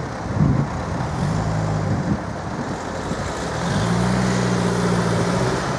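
Road traffic crossing the reopened level crossing: a car's engine hums steadily as it drives past, over low rumbling outdoor noise.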